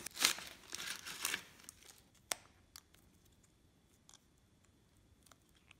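Crinkling and rustling of a stiff MRE foil-laminate pouch as the crackers are slid out, for about the first second and a half, then a single sharp click about two seconds in. After that only a few faint ticks as fingers work at the cheese spread packet.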